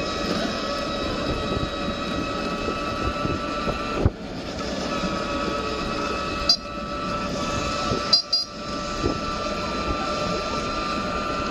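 Road vehicle in motion, heard from on board: a steady whine over road rumble. Short clicks and brief dips break it about four, six and a half and eight seconds in.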